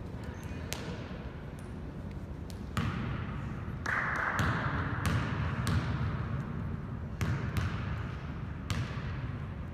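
A basketball being bounced on a gym floor as a player dribbles at the free-throw line: about ten sharp, irregularly spaced bounces.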